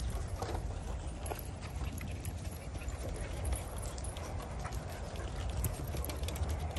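Many dogs' paws and claws clicking and tapping irregularly on wooden deck boards as the pack trots about, over a steady low rumble.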